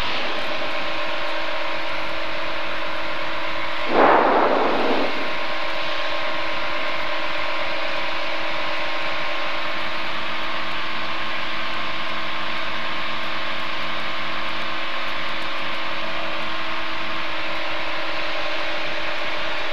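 Aquila light aircraft's Rotax 912 four-cylinder engine and propeller droning steadily in cruise flight, heard through the cockpit intercom. A short, louder burst of noise comes about four seconds in and lasts about a second.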